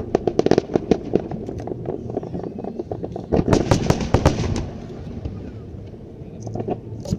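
Aerial fireworks going off in a rapid series of bangs and crackles, with a dense flurry about three and a half seconds in, then easing off before a few more bangs near the end.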